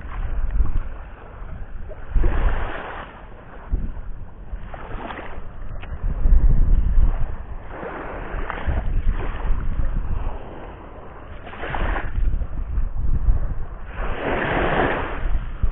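Waves washing onto the shore in surges every few seconds, the last the loudest, with wind buffeting the microphone throughout.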